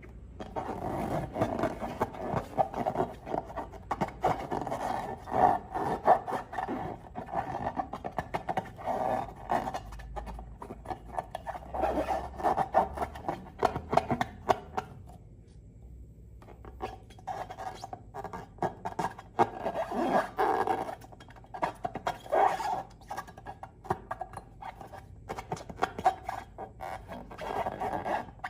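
Slime being squished and worked by hand: dense sticky clicking and crackling squelches that pause briefly just past the middle, then resume.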